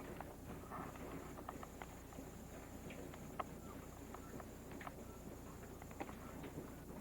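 Hailstones striking in a hail storm: scattered, irregular sharp ticks and taps.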